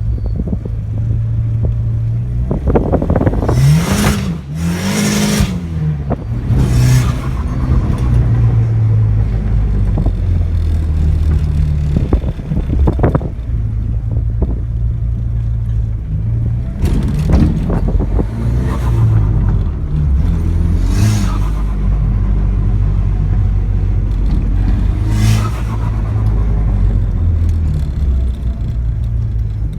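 Dodge SRT-4 Neon's turbocharged 2.4-litre four-cylinder revving hard during burnouts, heard from inside the car. About seven loud hissing blasts from the external wastegate venting through its screamer pipe, with turbo flutter.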